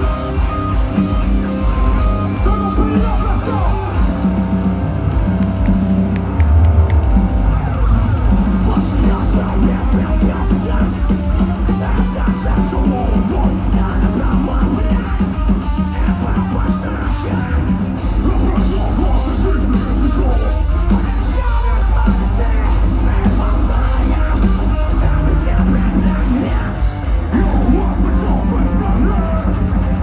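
Live metalcore band playing loud: heavy distorted electric guitars, bass and fast, dense drumming, heard from within the crowd.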